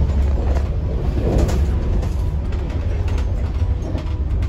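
Steady low rumble of a train carriage, heard from inside the passenger compartment, with a few faint clicks and rattles.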